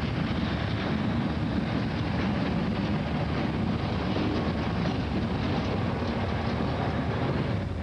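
EMD GP9 road-switcher's 16-cylinder 567 two-stroke diesel engine with its steady chant as the locomotive rolls past pulling freight cars, mixed with steady wheel noise on the rails.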